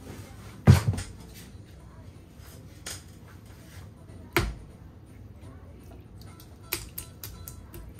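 Scattered knocks and clicks of hard objects being handled. A heavy thump comes just under a second in, a sharp click about four and a half seconds in, another near seven seconds, then a run of small ticks.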